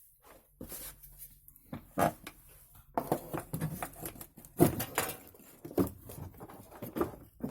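Handling noises: a piece of wood being picked up and set in place, with scattered knocks and rustles, the loudest knock about four and a half seconds in.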